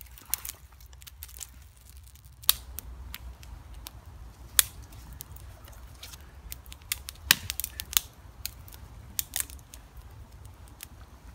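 Small twig-and-birch-bark campfire crackling, with dry sticks snapped by hand beside it: irregular sharp cracks and pops, a few loud single snaps standing out, over a low rumble.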